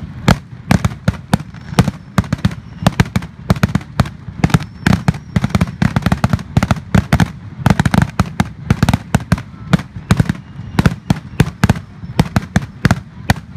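Aerial fireworks firing in rapid succession: a dense, unbroken string of sharp cracks and booms, several a second, with a deep low rumble beneath them.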